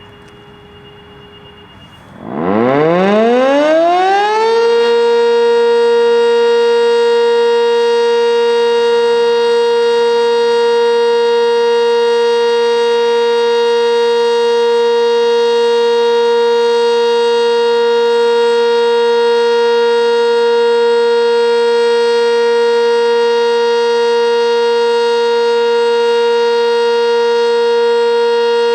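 Sentry 10V outdoor warning siren starting up on the alert signal: it winds up from a low growl to a high pitch in about two seconds, then holds one steady, loud tone.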